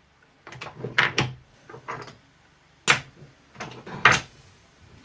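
Casino chips clacking as they are handled in a craps table's chip rack: bunches of sharp clicks about half a second in and around two seconds, a single loud clack near three seconds and a quick cluster about four seconds in.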